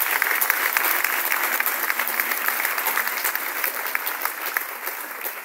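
Audience applauding, the clapping dying down toward the end.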